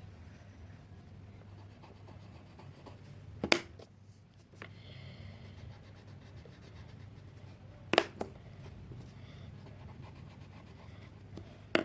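Coloured pencil scratching faintly on paper as a picture is coloured in, with two sharp taps, about three and a half and eight seconds in.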